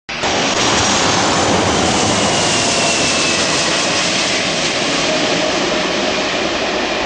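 Boeing 747-400's four Rolls-Royce RB211 turbofans on landing approach: a loud, steady jet rush with a faint whine drifting down in pitch, cutting in abruptly at the start.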